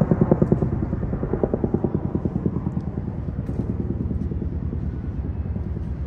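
A vehicle engine idling: a low, even, rhythmic throb that slowly fades over the few seconds.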